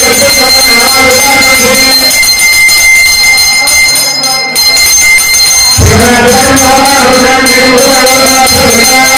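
A brass pooja hand bell rung continuously, a steady high ringing, over voices chanting or singing together. The voices drop away for a few seconds in the middle and come back strongly about six seconds in.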